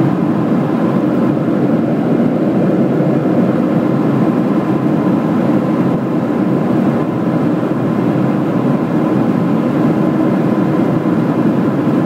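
Steady cabin noise of a Boeing 737 in flight, heard from inside the cabin over the wing: jet engine and rushing airflow noise with a faint steady whine above it.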